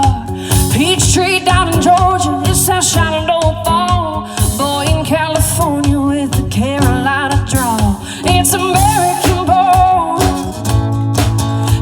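Live band performing a song with a singer; the sung notes waver with vibrato over steady drum beats.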